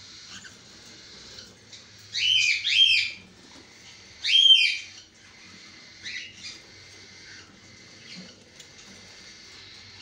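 Cockatiels calling: three loud, shrill calls about two to five seconds in, the first two close together, followed by a few fainter calls.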